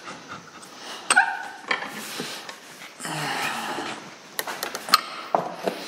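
Handling noise of a cast-iron tractor hydraulic valve and its plywood pads being repositioned and clamped in a bench vise: scattered clicks and knocks, a brief metallic ring about a second in, and a scraping stretch about three seconds in.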